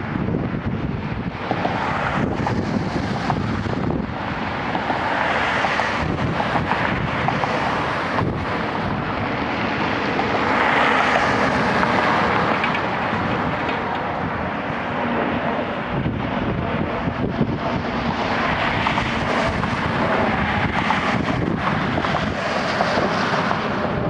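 Boeing 747-400's four Pratt & Whitney PW4000 turbofans running at taxi idle, a steady jet rush that swells a little about halfway through as the jet passes. Wind buffets the microphone throughout.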